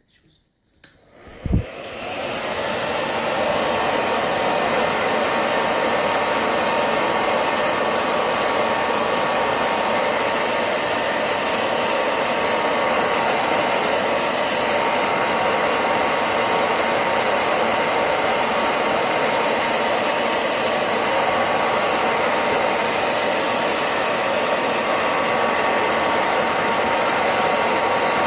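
Handheld hair dryer switched on with a thump about a second and a half in, spinning up over a couple of seconds and then running steadily on its heat setting.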